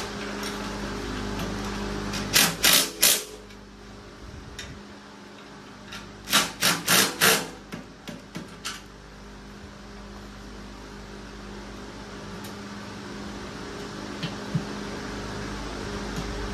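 Two quick runs of sharp knocks from tool work on the bike, about four and then about five in a row with a few fainter ones after, over the steady hum of an electric fan.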